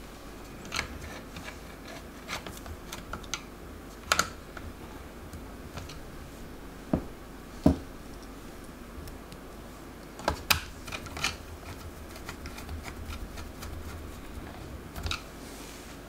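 Scattered light clicks and taps of small laptop screws being picked from a loose pile and set into a Dell Latitude E6540's opened base, about ten at irregular intervals.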